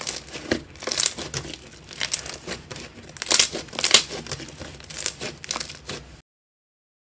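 Thick pink slime being squeezed and kneaded by hand, giving irregular wet crackling and crinkling squelches. It cuts off suddenly a little after six seconds.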